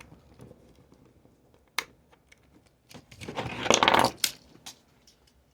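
Small sharp clicks and the scrape and rattle of hard plastic and metal parts inside a Samsung Tab 3 tablet being pried loose by hand. The busiest stretch of clicking and scraping comes about three and a half seconds in.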